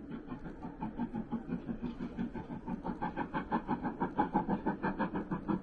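Steam locomotive hauling a train, its exhaust chuffing in a fast, even rhythm of about five beats a second that grows louder.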